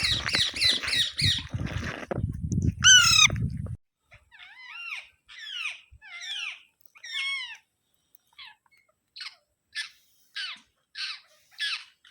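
Alexandrine parakeet calling over and over: a fast run of squawks at first, then several drawn-out arching calls, then short squawks about two a second near the end. A low rumbling noise runs under the first few seconds.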